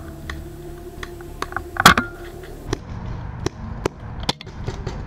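Paintball markers firing: scattered sharp pops at irregular intervals, the loudest just under two seconds in with a short ring after it, then more shots a little fainter.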